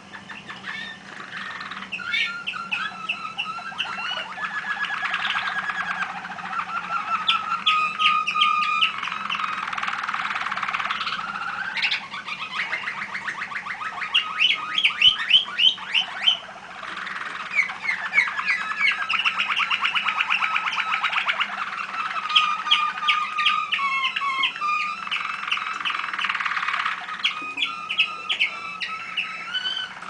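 Caged canaries singing a long, near-continuous song of rapid trills and repeated rolling phrases, with a few short breaks.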